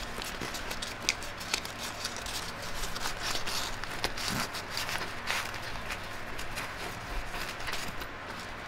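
A canvas travel bag being handled: fabric rustling with many small sharp clicks and taps from its fittings.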